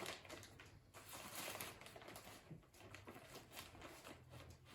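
Faint rustling with a few light ticks of brown sugar being scooped and measured into a measuring cup, a little louder about a second in.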